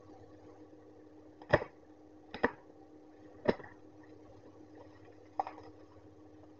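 A parcel wrapped in plastic and tape being handled on a desk: four sharp knocks and crinkles spread over a few seconds, the first three the loudest, over a steady low hum.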